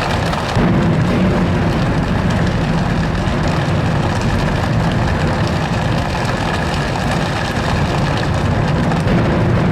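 A children's choir imitating a rainstorm with their voices and bodies: a dense, steady rushing like heavy rain over a low rumble that swells about half a second in.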